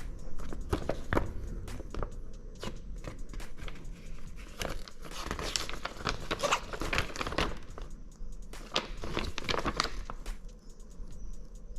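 Packaging being unwrapped by hand: irregular crinkling, rustling and tearing with scattered clicks and knocks, busiest in the middle.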